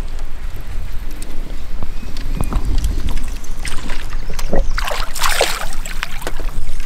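A hooked spotted bass splashing and thrashing at the water's surface as it is reeled to the boat, in a few sharp bursts toward the end, over a steady low rumble.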